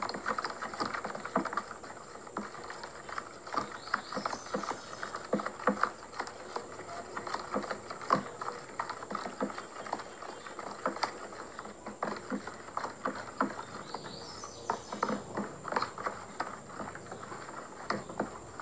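Homemade slime mix of glue, detergent, baking soda and boric-acid water being stirred in a plastic tub, making many small irregular clicks and sticky taps.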